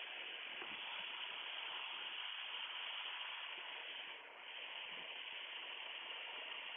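Steady cabin noise of a Piper Comanche 250 in descent, an even hiss of engine and airflow, dipping briefly about four seconds in.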